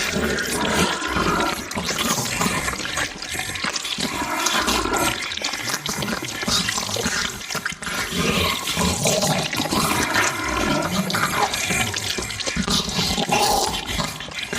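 Monster eating sound effect: continuous wet slurping and squelching, with no break.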